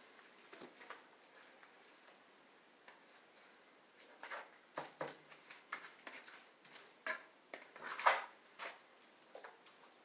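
Plastic spatula scraping and tapping against a skillet as ground beef is broken up and stirred: a run of short sharp clicks and scrapes starting about halfway through, loudest near the end.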